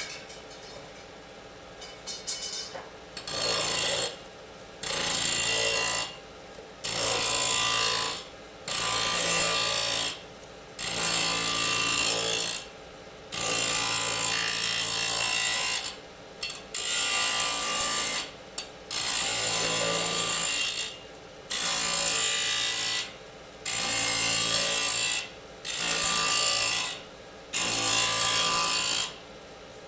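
Disc saw cutting aluminium in a series of short cuts, more than a dozen, each lasting one to two seconds with brief pauses between, the cutting noise sharp and high. A few light clicks come just before the first cut, about two seconds in.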